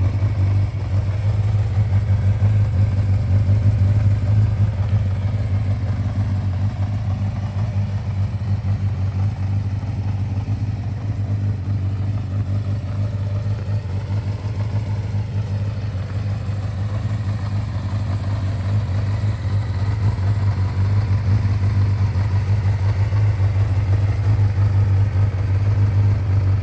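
Kawasaki GPz600R's liquid-cooled inline-four idling steadily through an aftermarket Yoshimura muffler.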